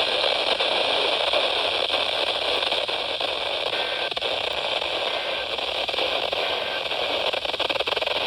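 Steady radio static hiss from a weather-radio receiver, with a few faint clicks and no voice coming through.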